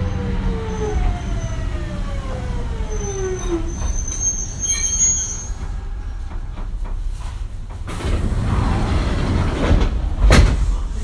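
Mitsubishi GTO-VVVF inverter traction motors of a Kintetsu 1420 series train whining in several falling tones as the train brakes to a stop, cutting out about three and a half seconds in. Later a hiss rises, and a sharp loud knock comes near the end.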